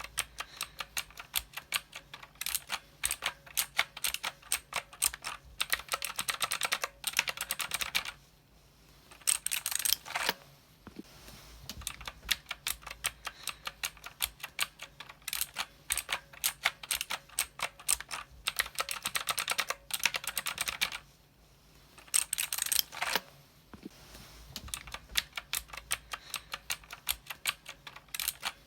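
Mechanical keyboard being typed on in fast, steady runs of keystrokes, with two brief pauses, about eight and twenty-one seconds in.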